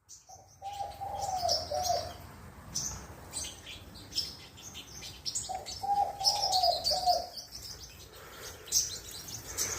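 Black-throated sunbird giving short, high chirps and brief twittering phrases on and off. A lower cooing call sounds twice behind it, near the start and again around the middle.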